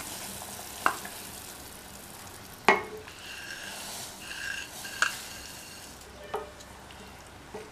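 Wooden spoon stirring wheat rava into boiling water in a steel saucepan: a steady hiss from the boiling pot, broken by about five sharp knocks of the spoon against the pan, the loudest about two and a half seconds in.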